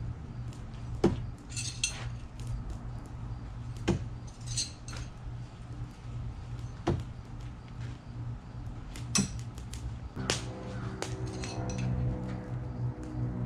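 Throwing knives hitting a wooden log target, five sharp hits about every two to three seconds, some with a metallic clink of the blade. Faint music with steady tones comes in near the end.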